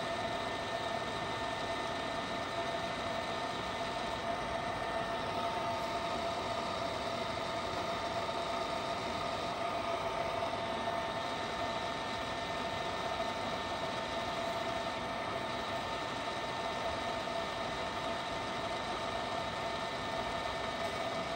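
Csepel RF 50/1250 radial arm drill running with its spindle under power feed. The drill head's motor and gearing give a steady hum with several steady whining tones.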